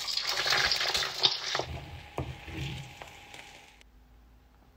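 An egg dropped into hot oil in a frying pan, sizzling, with a sharp crack about a second in. The sizzle cuts off suddenly about four seconds in.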